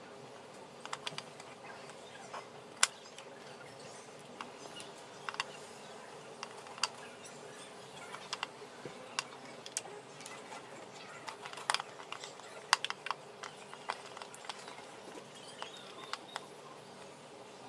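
Jigsaw puzzle pieces clicking and tapping at irregular intervals as they are picked up, slid and pressed into a metal tin puzzle tray on a table, with a few sharper clicks.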